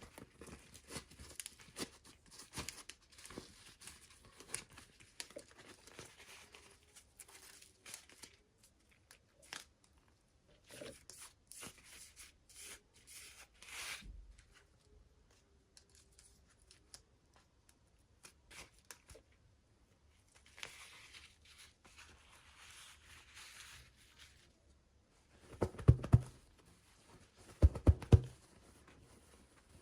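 Packaging being torn open and crinkled by hand: many short rustling, crackling tears, then two louder knocks near the end.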